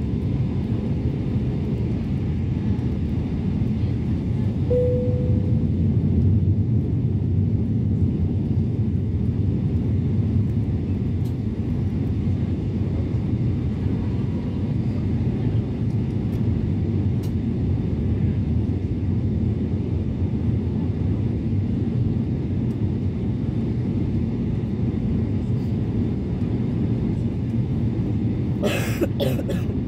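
Steady low rumble of an airliner cabin in flight, engine and airflow noise heard at a window seat. A short tone sounds about five seconds in, and there are a few clicks near the end.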